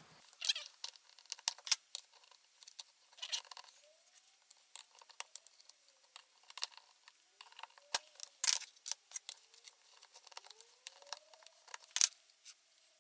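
Small metal and plastic clicks and taps from handling the parts of a push mower's recoil starter, with faint short squeaks in between. The pulley is stuck tight on its shaft.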